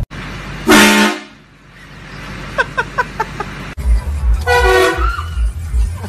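Train horn blast: a loud, brief chord of several tones about a second in. After a cut, a second shorter train horn blast comes midway over music with a heavy bass beat.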